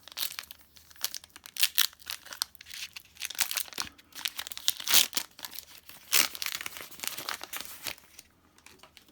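A Pokémon card booster pack's foil wrapper being torn open and crinkled by hand: an irregular run of crackles and rustles that stops about a second before the end.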